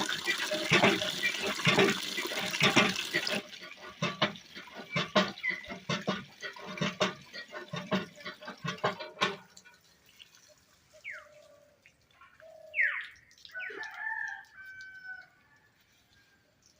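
Chickens clucking and a rooster crowing. The first half is a dense, noisy clatter that cuts off suddenly about nine seconds in, leaving separate calls with falling pitch.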